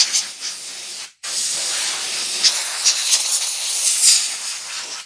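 Compressed air hissing from an air compressor hose's blow gun aimed into a subwoofer driver's surround, with only a little air left in the hose. It comes as a short blast that cuts off about a second in, then a longer blast that eases off near the end.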